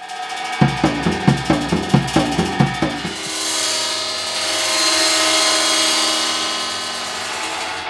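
Experimental contemporary music: a quick run of about a dozen low, pitched pulses, about five a second, then a sustained, swelling noisy wash with held tones that peaks about halfway through and eases off.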